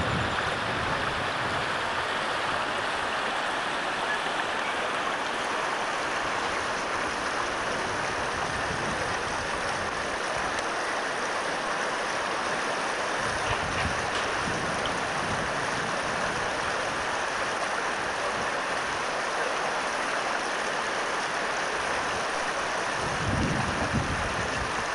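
Steady rush of water from a shallow rocky stream. Brief low buffets of wind on the microphone come twice, the second near the end.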